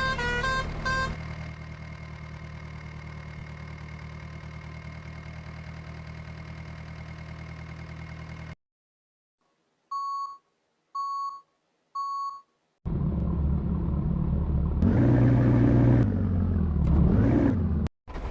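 A steady low engine hum, then after a short silence three short electronic beeps about a second apart. Then a louder vehicle engine sound starts, its pitch rising and falling.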